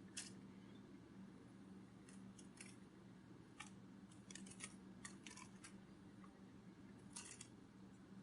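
Near silence: a steady low hum with faint, irregular clicks scattered through it, some coming in quick clusters.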